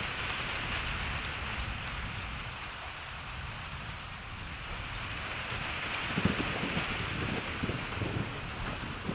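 Steady rain hissing, with a low rumble of distant thunder underneath. From about six seconds in there is a run of irregular low thumps.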